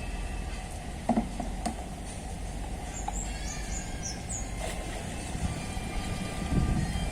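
Steady low rumble with a few short, high bird chirps a few seconds in and scattered light knocks.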